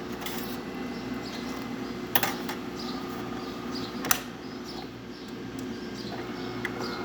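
DeLonghi Magnifica bean-to-cup espresso machine running through a shot cycle: a steady mechanical hum with two sharp clicks about two seconds apart.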